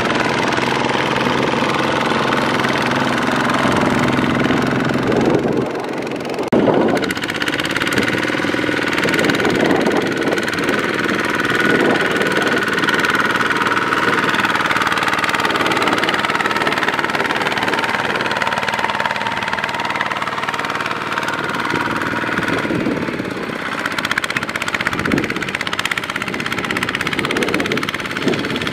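Single-cylinder diesel engine of a Kubota RT140 two-wheel power tiller running under load as it drags a loaded trailer through sticky paddy mud. Its note shifts about six seconds in and again near the end.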